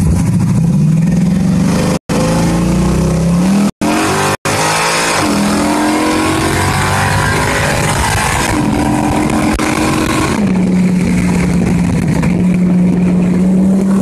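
Car engine heard from inside the cabin, pulling hard with its pitch climbing through the gears, then settling into a lower steady note at cruise about ten seconds in. The recording cuts out for an instant three times in the first half.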